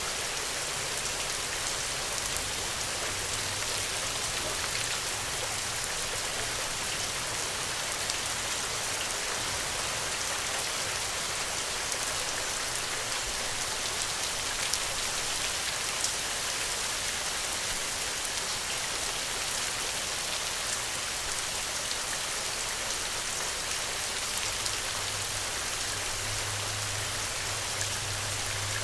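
Steady rain falling, an even hiss of many drops with a few single louder drops standing out now and then.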